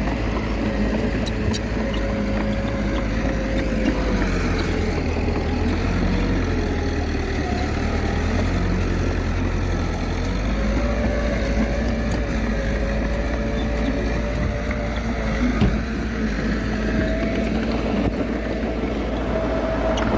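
Komatsu D21A small bulldozer's diesel engine running under load, its pitch wavering up and down as it works, with a few light knocks.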